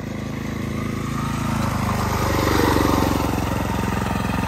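Scratch-built off-road scooter's Predator 224 single-cylinder four-stroke engine running under way as it is ridden past, growing louder to its loudest about three seconds in, then steady.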